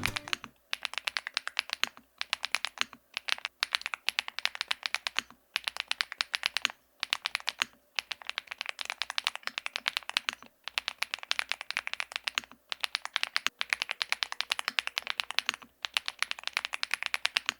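Fast typing on an ABKO AR88 mechanical keyboard with HMX x ABKO Duck linear switches: rapid clicky keystrokes in bursts of a second or two, with brief pauses between.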